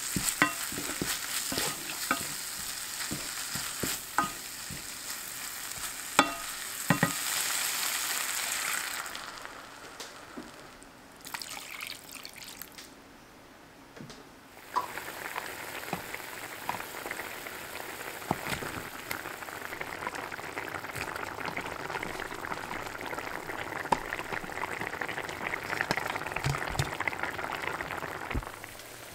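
Minced pork with chilli flakes sizzling in sesame oil in a small pan, scraped and stirred with a wooden spatula in quick clicks. The sizzle falls away about nine seconds in, once rice water goes in, and from about fifteen seconds the stew boils with a steady bubbling hiss and small pops.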